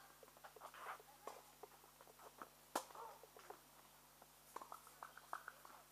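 Faint scattered ticks and small chirps, with one sharp, loud knock about three seconds in: a tennis ball impact on the court.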